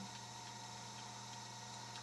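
Steady low electrical hum and hiss: background room tone, with no distinct clicks or handling sounds.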